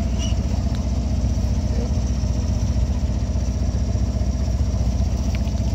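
A boat's engine running steadily at a constant speed, with a low, even drone.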